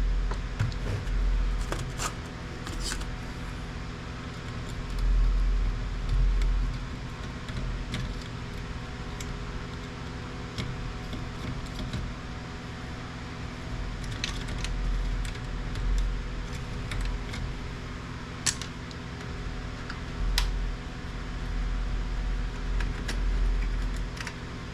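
Scattered clicks and clatters of plastic printer parts and hand tools being handled during disassembly, with occasional dull thumps, over a steady low hum.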